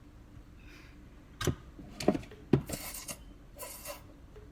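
A person eating noisily with the mouth open: a few sharp wet lip smacks in the middle, then short crackly chewing and smacking sounds.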